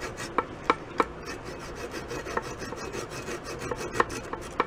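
Small fine-toothed handsaw cutting through a wooden dowel plug flush against a wooden drum shell, with short rasping strokes and now and then a sharp click as the teeth catch. The dowel is the glued-in plug for an old hole, being trimmed off close to the shell.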